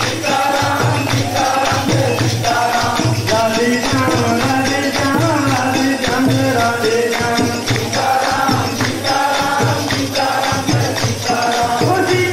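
Hindu devotional kirtan: a group of voices singing a chant together, with hand-clapping and shaken percussion keeping the beat.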